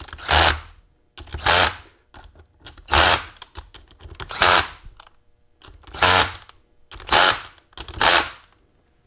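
Impact gun running down the case bolts of a Dana 44 Powr-Lok limited-slip differential in seven short rattling bursts, about one a second, working across the case from side to side. The bolts are only being snugged, ahead of torquing them to 60 foot-pounds.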